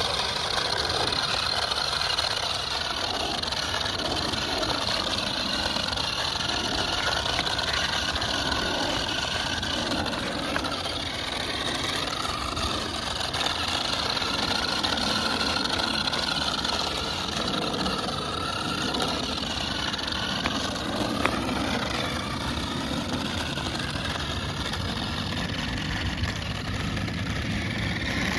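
Small electric motors of two remote-control toy cars running, whirring steadily with a pitch that wavers up and down as the cars speed up and slow.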